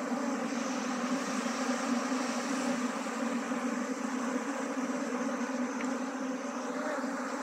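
Steady, dense buzzing of a mass of honeybees, a low hum with many overtones, as a disturbed colony is hand-transferred into a wooden box hive.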